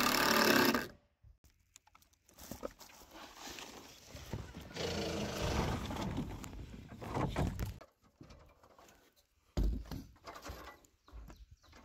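Cordless drill running as it drives a screw into plywood, cutting off abruptly about a second in. Scattered knocks and handling sounds follow.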